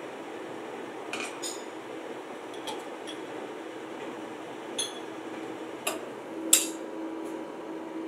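Steel sprocket blanks clinking sharply as they are handled, half a dozen separate clinks with the loudest about six and a half seconds in, over a steady hum of workshop machinery.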